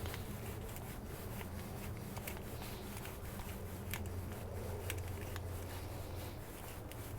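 A worm-drive hose clamp being tightened by hand, with small irregular clicks and scraping of the metal band. A low steady hum runs underneath.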